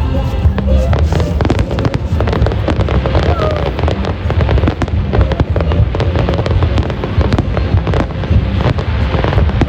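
Fireworks display going off continuously, with dense rapid crackling and popping over deep booms, and music playing alongside.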